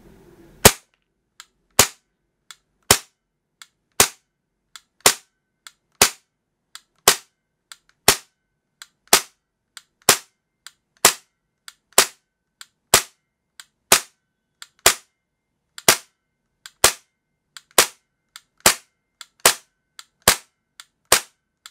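Tokyo Marui USP9 gas blowback airsoft pistol with a plastic slide, fired semi-auto about once a second, each shot a sharp pop-and-clack of the cycling slide, with a fainter click between most shots. The magazine is being emptied in a gas-efficiency test, and the blowback grows weaker as the gas magazine cools.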